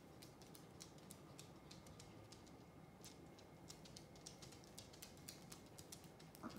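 A Chihuahua's claws ticking faintly and irregularly on a wooden floor as it walks and trots about, the ticks thickest in the second half. A short, slightly louder soft sound comes near the end.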